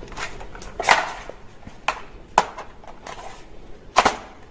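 Toy gun clicking: about four sharp clicks and snaps, irregularly spaced, some with a brief ring after them.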